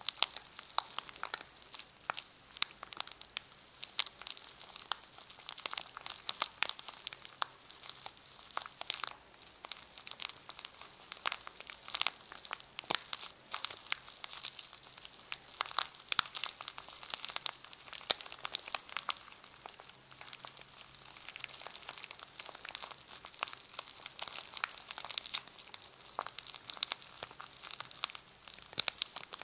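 Plastic packaging around a brush crinkling as it is handled, a continuous run of irregular crackles.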